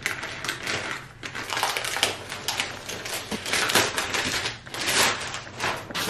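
Plastic shipping mailer crinkling and rustling as it is torn open and a cardboard box is pulled out of it, with a rapid, irregular crackle.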